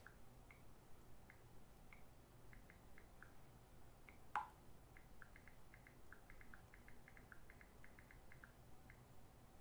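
Near silence: quiet room tone with faint, scattered light ticks and one sharper click about four seconds in.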